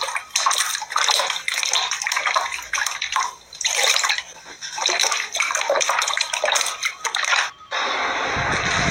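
Wet sloshing and splashing in irregular bursts, like liquid being poured and stirred. About three-quarters of the way through it cuts abruptly to a steadier rushing noise.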